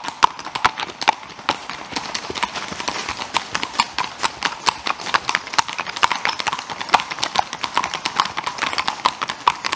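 Hooves of a string of Icelandic horses striking an asphalt road as they pass, many clip-clops overlapping in an uneven rhythm.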